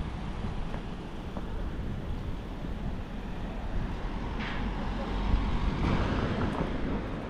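Road traffic: a low, steady rumble of passing vehicles, a little louder about five to six seconds in.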